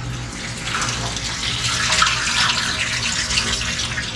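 Running water splashing into a live-seafood tank, louder from about a second in, over a steady low hum.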